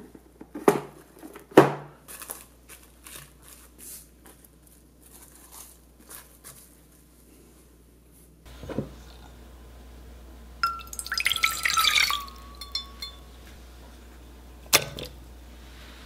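Plastic cling film crinkling and crackling as it is pressed down onto pastry cream in a ceramic dish, in sharp snaps and crackles. About ten seconds in comes a denser burst of crinkling with a brief squeak, and near the end there is one sharp click.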